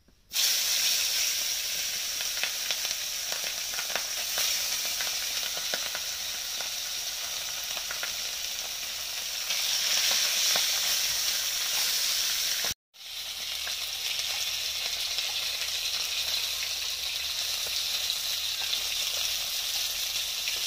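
Fish pieces sizzling in hot oil in a non-stick pan, the sizzle starting abruptly as they go in. Faint clicks of a spatula turning them run through it. The sound drops out for a moment about two-thirds of the way through, then the frying carries on.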